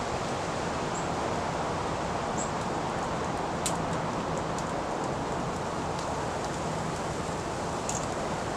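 Steady outdoor background hiss, with a few brief, faint high chips from small songbirds at the feeders and a single small click a few seconds in.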